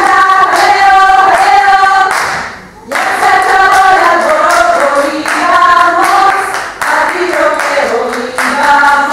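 A group of voices singing together, accompanied by hand clapping, with a short break in the singing about two and a half seconds in.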